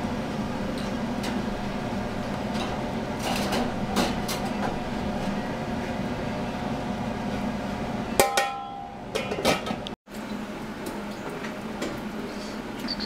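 Water-bath canner of sauce jars at a boil, with a steady hiss. A metal jar lifter clinks against the glass jars and the enamel pot, with a few sharp clicks and one loud ringing clank about eight seconds in.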